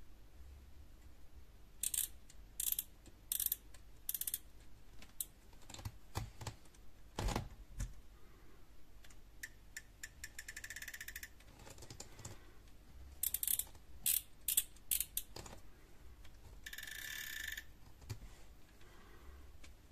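Daiwa Coastal TWS 200HSL baitcasting reel's drag clicker clicking as braided line is pulled off the spool against the drag. Short tugs give brief clicks; a longer pull about ten seconds in gives a rapid, even run of clicks, and a fast pull near the end blurs them into a buzz. A few low handling knocks come in between.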